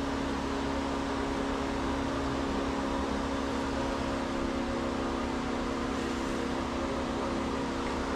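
Steady hum of a running electric fan: an even, unchanging tone over a soft rushing noise.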